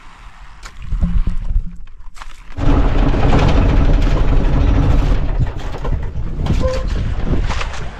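Outrigger fishing boat's engine running under way, a steady hum with wind rumbling on the microphone. It comes in suddenly about two and a half seconds in, after a quieter stretch.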